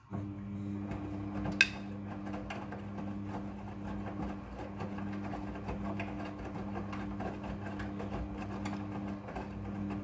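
Midea front-loading washing machine running its wash cycle: a steady motor hum as the drum turns and tumbles wet clothes, with faint knocks throughout and one sharp click about one and a half seconds in.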